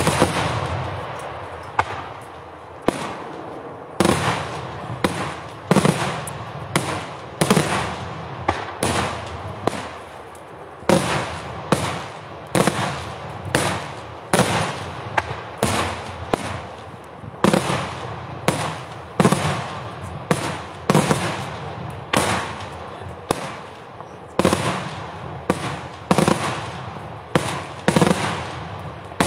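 Pirotecnica Cavour daytime fireworks: a steady run of loud aerial bangs, about one a second, each trailing off before the next.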